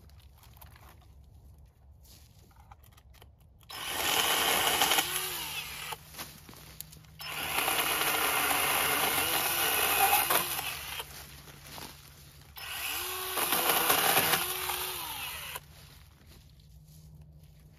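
Battery-powered chainsaw cutting peach tree limbs in three runs of a few seconds each, its motor whine dipping in pitch and recovering as the chain bites into the wood.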